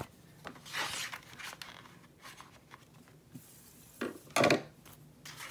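Paper and cardboard rustling and rubbing as a DVD booklet is handled and slid into the cardboard pocket of a DVD case. There is a brief rustle about a second in and a louder rub about four seconds in.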